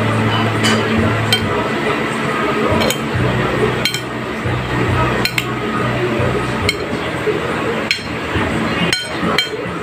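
Metal spoon clinking against a ceramic plate while tossing sliced cucumber and onion salad: sharp, irregular clinks about once a second, over a low steady hum.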